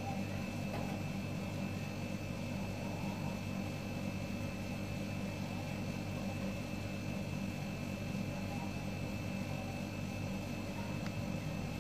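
A steady low machine hum made of several low tones together, with a faint thin whine above it.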